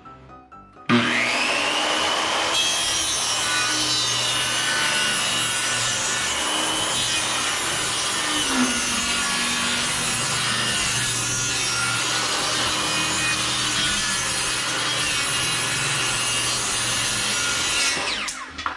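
Electric power tool working wood: the motor whines up to speed about a second in, runs steadily under load for about 17 seconds, then winds down near the end.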